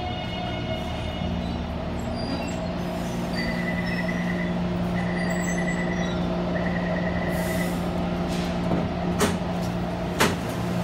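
Taipei Metro C321 train standing at the platform with a steady low hum. Three high beeps of about a second each sound in the middle, then two sharp thuds about a second apart near the end.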